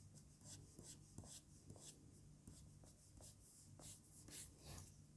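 Very faint scratching of a reMarkable Marker Plus stylus nib on an ONYX BOOX Note 3 e-ink screen: many quick strokes in a row, about four a second, over a low steady hum.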